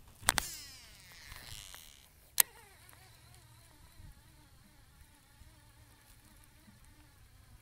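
Baitcasting reel during a cast and retrieve. The spool whirs out on the cast, there is one sharp click about two and a half seconds in, and then a faint, steady whir as the handle is cranked to reel in.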